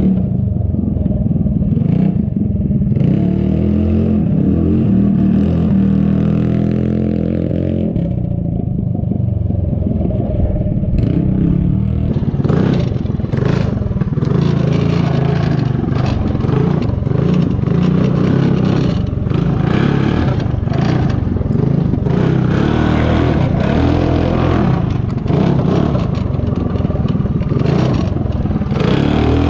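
Yerf-Dog go-kart with a stage 4 modified Wildcat 223 single-cylinder engine being driven hard, the engine revving up and down. From about twelve seconds in, loud clattering and scraping are heard on board as the kart runs over rough ground.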